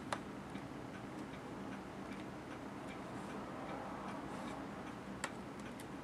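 Faint, irregular ticks and clicks of a small screwdriver tightening the CPU heatsink screws in the underside of a Dell Inspiron 1545 laptop, with two sharper clicks, one at the start and one about five seconds in, over a low steady hum.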